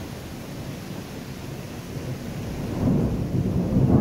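Thunder rumbling low and long, swelling louder near the end, over steady rain.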